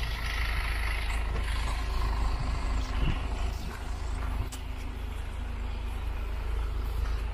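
Heavy diesel engine of a dump truck or excavator running at idle, a steady low rumble.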